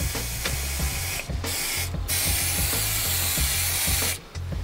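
A loud, even hiss that breaks off twice in the first two seconds, then runs unbroken for about two seconds before stopping near the end, over background music.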